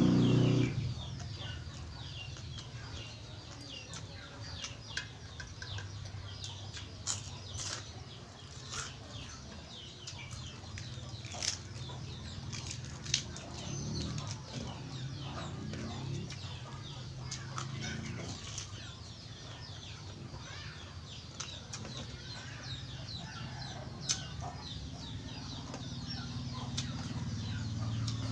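Mouth noises of a person eating by hand: chewing and smacking with an irregular scatter of short, sharp clicks, over a steady low hum.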